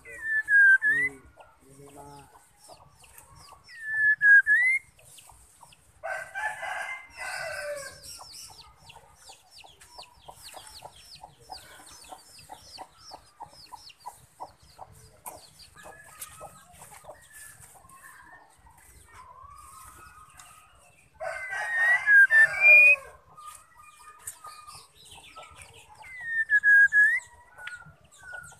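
Female white-rumped shama calling: three loud swooping whistled notes that dip and rise again, two harsh chattering bursts of about two seconds each, and a fast ticking rattle between them.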